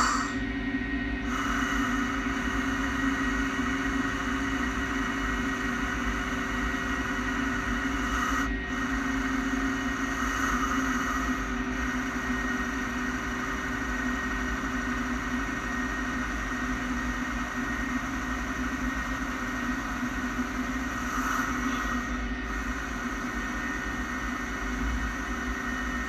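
Samsung SL 15 CNC turning lathe running a rough-turning pass: a steady machine hum with several steady whining tones from the spindle and drives, briefly dipping twice.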